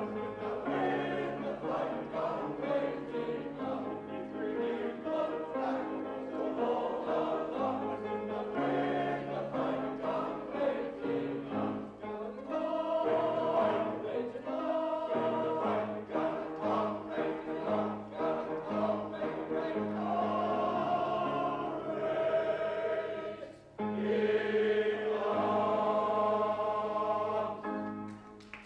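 Male voice choir singing a song in harmony, with a short break about three-quarters of the way through and the closing chord held until just before the end.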